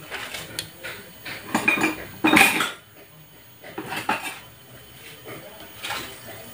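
Metal kitchen utensils and cookware clattering and scraping in several short bursts, loudest about two seconds in.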